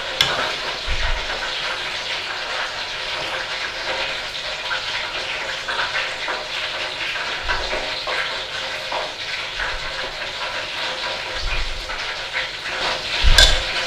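A ladle scooping thick mushy peas from a stainless steel pot into a glass bowl: faint wet scooping sounds and a few soft knocks over a steady hiss.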